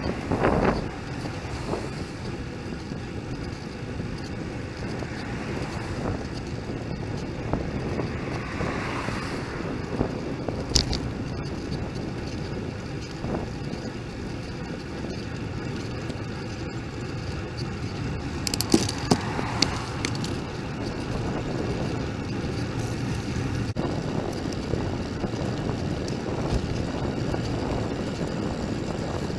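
Steady wind rush on a bicycle-mounted camera's microphone with road noise from riding, broken by a sharp click about a third of the way in and a few more clicks or rattles a little past halfway.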